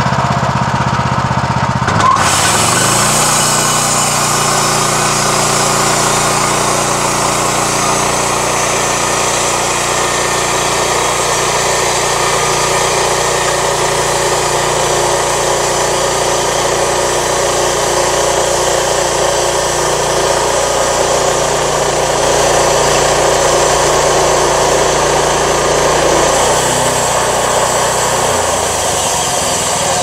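Portable bandsaw sawmill with a gas engine: the engine comes on and revs up over the first few seconds, then runs steadily under load while the band blade saws through a log. The sound changes and eases slightly near the end.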